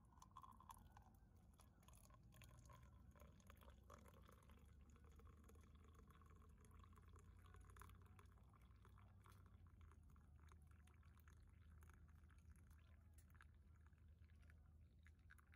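Very faint pouring of liquid, likely freshly pressed coffee going into a cup, with small scattered ticks over a low hum.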